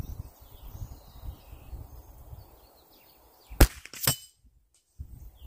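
A single shot from a Remington 597 semi-automatic .22 LR rifle about three and a half seconds in, followed about half a second later by a second, quieter sharp crack.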